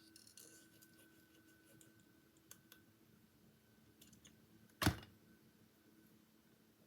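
Quiet handling of paper pieces on a craft desk: a few faint clicks and light rustles, with one sharp click nearly five seconds in.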